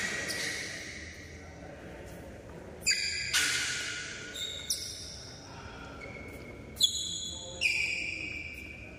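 Badminton doubles rally: about five sharp hits, roughly a second apart, each followed by a high ringing tone that fades in the hall.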